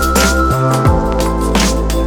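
Background music with a deep bass line, sustained pitched notes and a steady drum beat.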